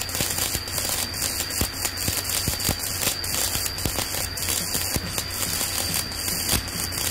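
Stick-welding arc from a Jasic inverter welder crackling and sizzling steadily with frequent sharp pops as a 2.5 mm electrode is run at 200 A. The welder finds the arc sticky and uneven, the rod tending to stick.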